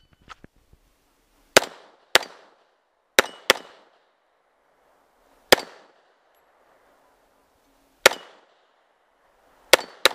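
Eight shots from a .40-calibre Glock pistol fired strong-hand only, unevenly spaced: two quick pairs in the first few seconds, then slower single shots, and a final quick pair near the end. A faint ringing tone hangs after a couple of the shots.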